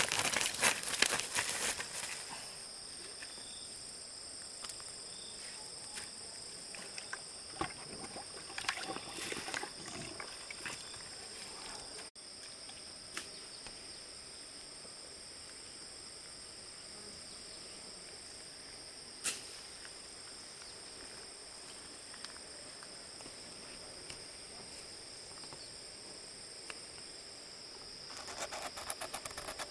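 Steady high-pitched insect chorus droning without a break, with scattered rustles and knocks near the start, about halfway through and near the end.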